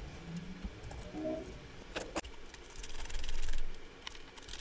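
A few light metallic clicks, then a dense scraping rasp from about three seconds in as a precision screwdriver drives a small screw into the vape mod's metal top plate.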